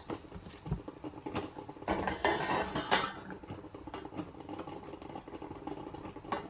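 Spatula scraping and knocking against a frying pan as it is worked under a cooking pancake, with a louder stretch of scraping about two seconds in and scattered light taps otherwise.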